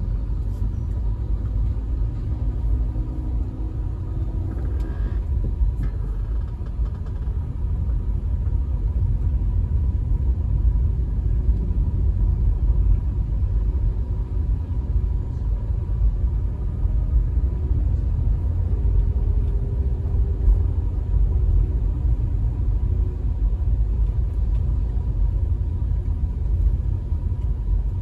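Steady low rumble of a car's tyre and engine noise heard from inside the moving car, with a faint thin steady whine throughout and the sound of passing traffic.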